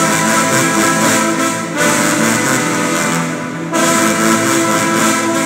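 A trombone section playing held brass chords together, in loud phrases that break off briefly about two seconds in and again near four seconds.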